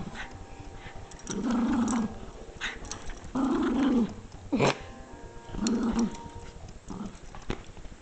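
Jack Russell terrier growling in play while worrying a plush toy: three drawn-out growls, with a few short sharp noises between them.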